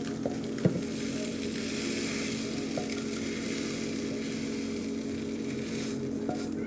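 Tofu and mushroom scramble sizzling steadily in a frying pan, with a few light clicks of a utensil stirring it.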